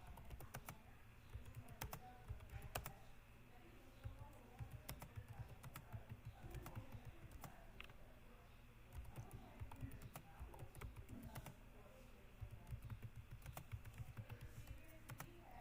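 Typing on a computer keyboard: a steady run of key clicks, several a second, as a typing-tutor letter drill is worked through.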